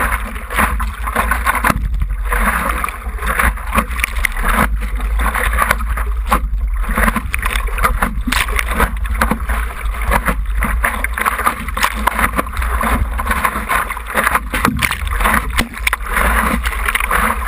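Water rushing and splashing against the nose of a stand-up paddleboard moving through choppy sea, heard up close from a camera mounted on the board, with irregular splashes over a constant low rumble.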